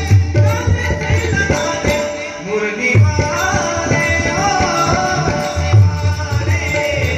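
Marathi devotional gaulan sung by a male voice, accompanied by pakhawaj and tabla drumming in a steady rhythm over a held drone note. The drums drop out for a moment about two seconds in and come back strongly.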